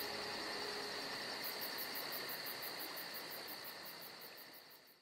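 Crickets and other night insects trilling steadily, with a high chirp pulsing about six times a second over the top; the sound fades out near the end.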